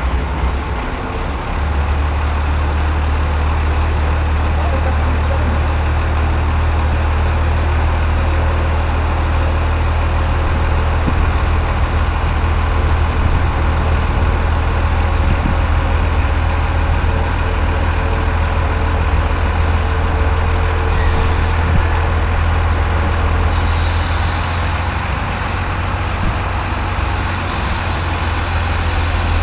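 Industrial washing machine running: a loud, steady low hum under a constant mechanical noise, with short hissing bursts about two-thirds of the way through and a steady hiss near the end.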